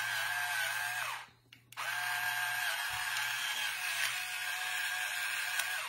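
Electric pepper grinder's motor whining steadily as it grinds, in two runs with a short break a little over a second in.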